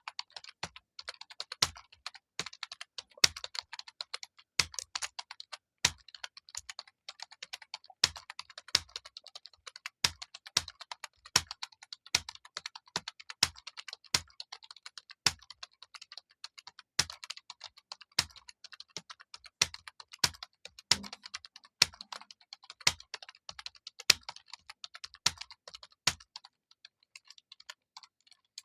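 Continuous typing on a computer keyboard at a steady test pace of about 48 words per minute: a rapid stream of key clicks, with a heavier, deeper keystroke every second or so.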